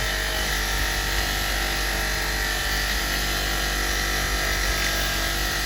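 Powered wire brush running steadily while an old steel box spanner is passed against it, scrubbing off rust and grime.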